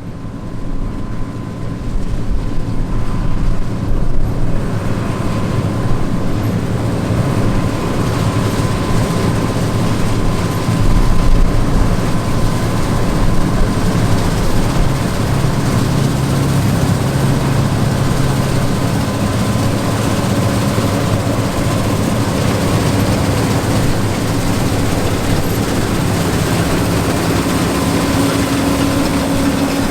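Heavy diesel farm machinery of a 1990s John Deere wheat harvest running steadily, with a thin steady whine over the engine. The sound rises over the first couple of seconds.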